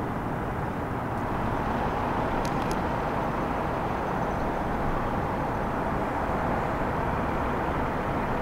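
Steady outdoor rumble of motor vehicles or machinery, with two faint short clicks about two and a half seconds in.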